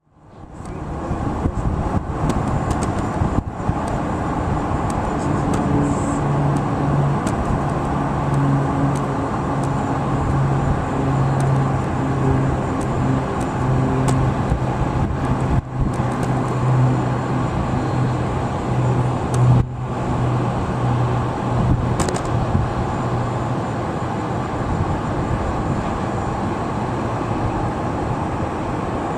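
Steady outdoor noise with a low motor drone that comes in about five seconds in and fades out around twenty seconds, broken by a few very short dropouts.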